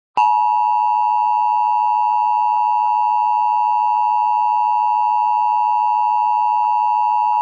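Emergency Alert System attention signal: a loud, steady two-tone alarm of two pitches sounding together just under 1 kHz, starting suddenly a moment in and held without change. It is the signal that an emergency alert message is about to be read.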